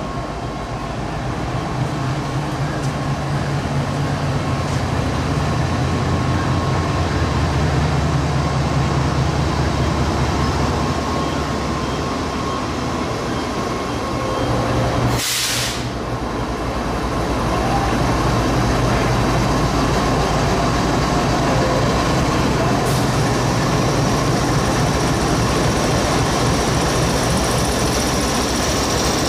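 Diesel-electric locomotive engine of a GEU-40 running with a steady low drone, swelling for several seconds early on, with a brief break in the sound about halfway through.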